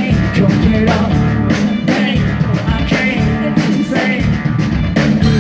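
A live rock band playing loudly through a PA: a drum kit keeps a steady beat of about two hits a second under bass guitar and electric guitar.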